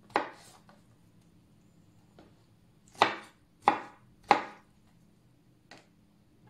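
Kitchen knife chopping pineapple pieces on a wooden cutting board: one sharp knock of the blade on the board just after the start, then three evenly spaced knocks about two-thirds of a second apart in the middle, and a faint one near the end.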